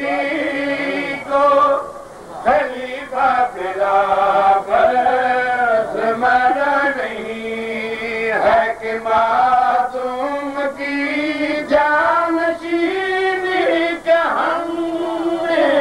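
A man's voice chanting verse in a melodic recitation, with long held notes that slide between pitches and short pauses for breath between phrases.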